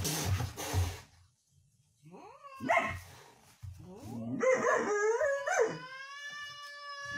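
A German Shepherd-type dog barking and howling. A harsh rush of noise in the first second, a short call near three seconds, then a string of rising and falling yowls that settles into one long, held howl near the end.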